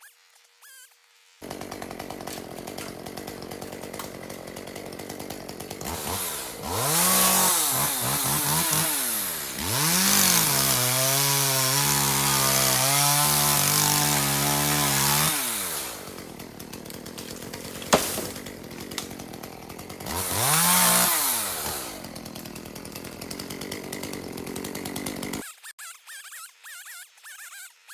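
Small two-stroke chainsaw running: it idles, is revved up three times, and holds high revs for about five seconds in the middle. The sound starts suddenly about a second in and cuts off a few seconds before the end.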